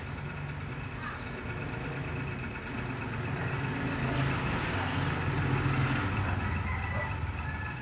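Carpenter bee buzzing its wings in uneven bouts on the ground, a low hum, unable to take off because of a broken wing.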